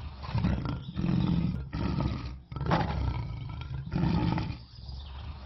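Lion roaring: a series of about five deep roars coming about once a second.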